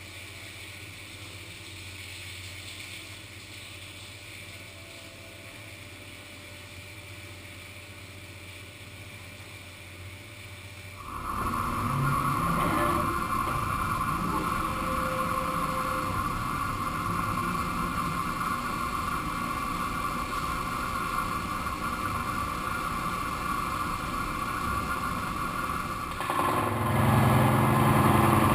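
Heckert HEC 800 Athletic horizontal CNC machining centre at work on a truck crankcase: a steady low machine hum, then about eleven seconds in a louder cut begins with a steady high whine over the machine noise, growing louder and fuller near the end.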